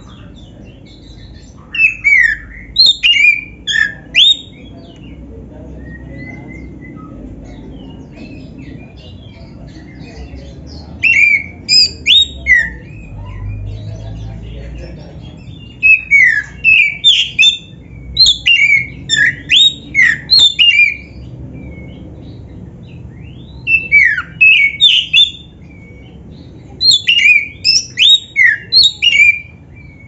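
Black-breasted oriental magpie-robin (kacer) singing in loud bursts of rapid, sweeping notes. There are five phrases of one to five seconds each, with pauses between them.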